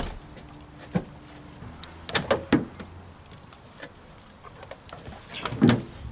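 Hand tools being rummaged through and knocked about: a few separate knocks and clatters, the loudest a cluster about five and a half seconds in as screwdrivers drop.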